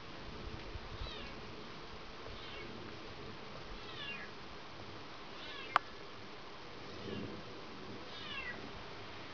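Faint, short falling cries from an animal, repeating about every second and a half over a steady background hiss. A single sharp click sounds about halfway through.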